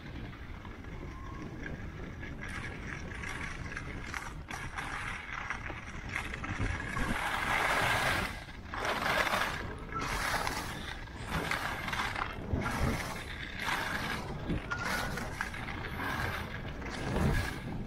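Rhythmic scraping and crunching on groomed, packed snow, in strokes about once a second from a few seconds in, over a steady low rumble.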